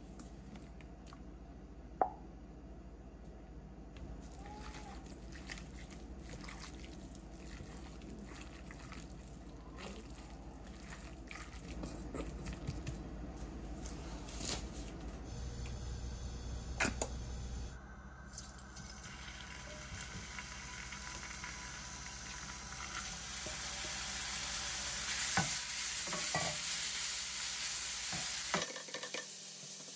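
Food frying and sizzling in a pan, with a utensil stirring and a few sharp clicks of cookware; the sizzle grows louder in the second half.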